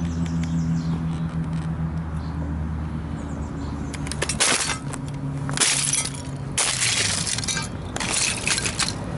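Scale model car being stomped and crushed under sneaker soles on asphalt, its body and parts cracking and snapping apart. Four sharp crunches come in the second half over a steady low hum.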